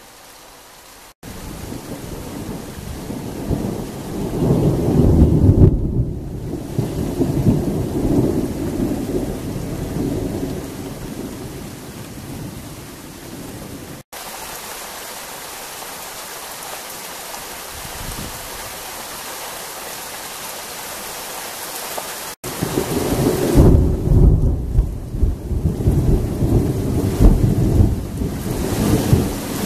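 Steady rain with thunder rumbling in long rolls: a long peal a few seconds in, several seconds of rain alone in the middle, then another long peal near the end.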